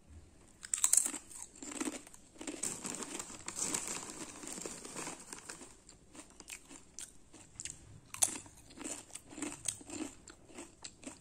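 Lay's potato chips being bitten and chewed: a long run of crisp, irregular crunches.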